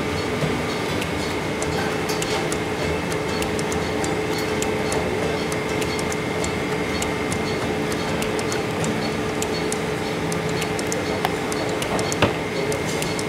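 Steady mechanical drone of commercial kitchen machinery with a constant hum, scattered light clicks and clinks over it, and a couple of sharper clinks near the end.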